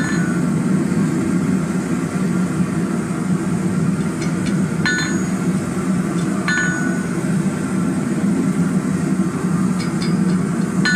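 A few hammer blows on a hot pineapple-twisted square bar lying on the anvil, straightening it. The blows come a second or more apart, and the two clearest, about five and six and a half seconds in, ring out with a bright metallic ring. A steady low roar lies underneath, louder than the blows.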